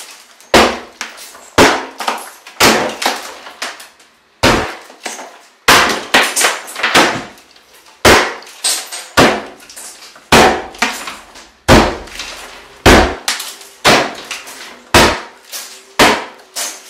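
Shower wall being smashed from inside: a long series of hard strikes breaking the wall material, about one or two a second and often in quick pairs, each with a short crack that dies away fast.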